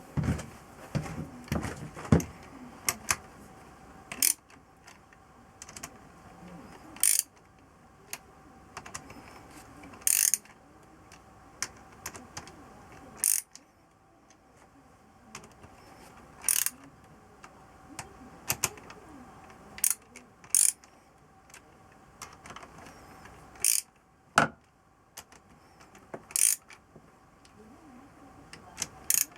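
Metal tools and engine parts clicking and clinking in irregular, separate strokes while a motorcycle cylinder head is worked on by hand.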